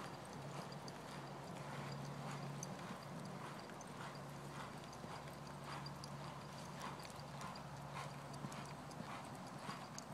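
Black horse's hoofbeats on soft sand arena footing, a faint, fairly regular series of dull strikes about once or twice a second as it is ridden around the arena.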